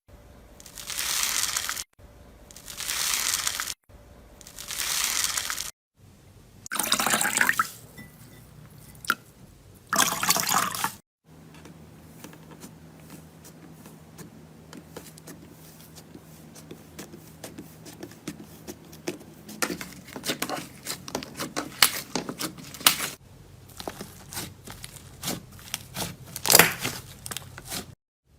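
Slime being squeezed and played with by hand: a few wet squishing swells, each a second or two long, then a stretch of quick small sticky pops and crackles.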